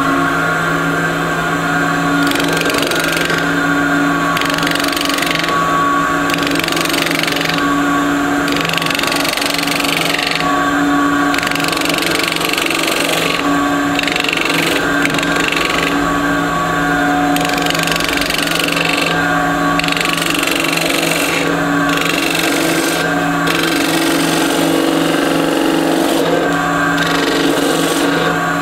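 Wood lathe running with a steady hum while a hand-held turning tool cuts into the spinning wood of a pendant blank, taking off the last of its centre index hole. The cutting hiss comes and goes in short repeated passes.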